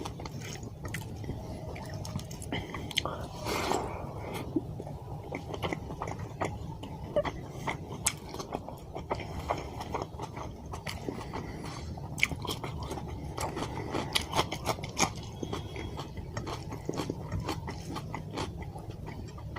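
A person eating fish curry with white rice close to the microphone: wet chewing and biting mouth sounds with many small clicks and crunches.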